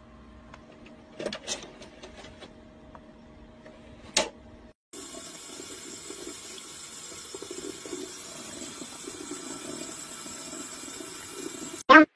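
Water running steadily from a tap into a sink for about seven seconds, starting about five seconds in. Before it, a faint steady hum with a couple of brief sounds.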